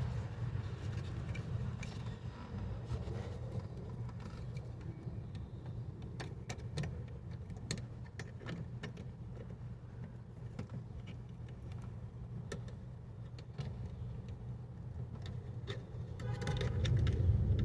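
Scattered small plastic clicks and rattles as a replacement inner door handle is worked and snapped into its mount in the door, over a steady low hum.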